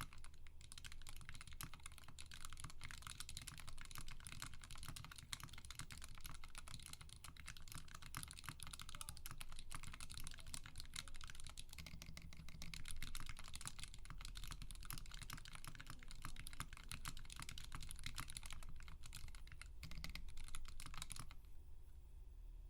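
Continuous typing on a GK64 mechanical keyboard with Durock Alpaca linear switches lubed with Krytox 205g0, on an aluminium plate with PBT keycaps: a dense, irregular clatter of keystrokes. The uploader finds these switches inherently rattly. The typing stops about a second before the end.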